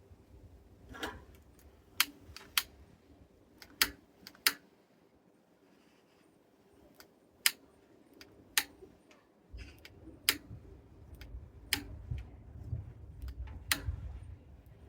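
Irregular sharp snaps and clicks, about nine of them, as kindling is worked to get a campfire lit. From about nine and a half seconds in, a low wind rumble on the microphone joins them.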